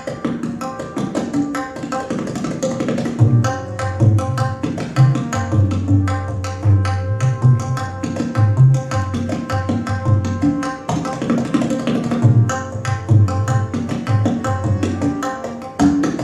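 Tabla solo: fast, dense strokes on the right-hand dayan, joined about three seconds in by deep bass strokes on the metal bayan whose pitch rises and falls.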